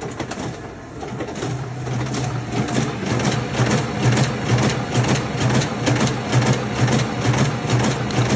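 RISO digital duplicator running off copies, a fast even rhythm of about two to three strokes a second over a steady low hum, getting louder over the first two seconds.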